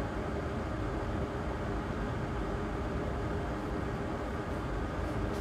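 A fan running steadily: an even low rumble and hiss with a faint steady hum.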